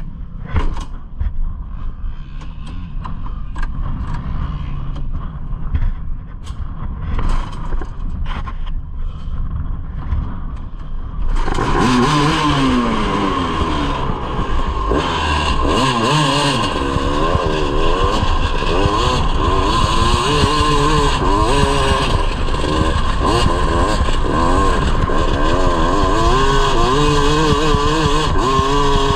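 Clicks and knocks over a low rumble, then about a third of the way in a Yamaha YZ250 single-cylinder two-stroke engine in a grass kart comes in loud, revving up and down repeatedly as the kart drives off.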